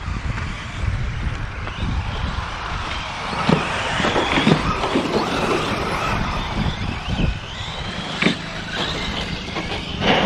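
Electric 1/10-scale RC off-road trucks racing on a dirt track, their motors whining and changing pitch as they accelerate and slow, over a steady low rumble. A few sharp knocks come through, around the middle and near the end.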